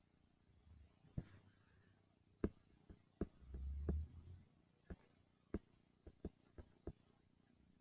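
Faint, irregular taps and clicks on a touchscreen as lines are drawn on it, about ten in all, with a brief low rumble near the middle.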